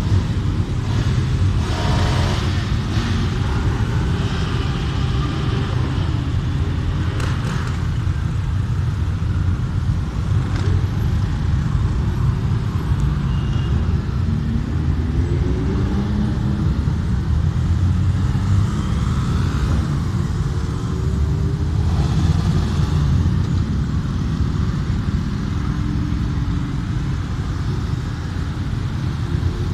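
Many motorcycles riding past in a continuous stream, their engines making a steady drone, with single bikes revving up and accelerating away in rising pitch every few seconds.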